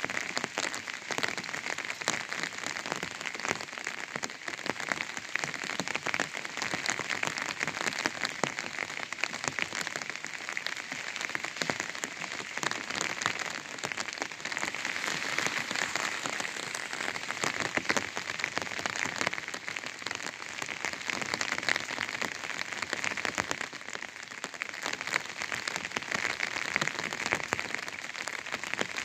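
Rain falling steadily on an umbrella, a dense, unbroken stream of small drop hits.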